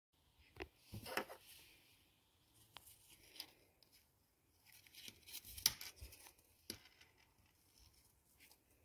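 Fingers handling a small plastic LEGO minifigure over a tabletop: faint scattered clicks and taps with soft rustling, busiest about a second in and again around five to six seconds in.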